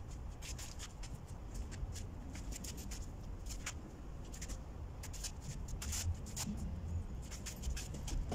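A hand rubbing and spreading wood glue along the strips of a wooden door frame: a scratchy rubbing with many short, irregular ticks.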